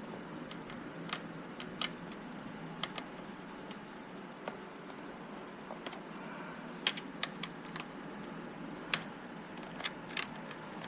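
Scattered light clicks and taps, irregular and a second or more apart, from small parts and tools being handled during hand work on a motorcycle, over a steady low background hum.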